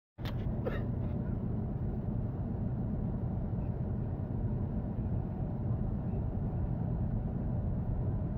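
Steady low rumble of a moving bus heard from inside the cabin: engine and road noise. It starts abruptly just after the beginning, with a couple of short knocks in the first second.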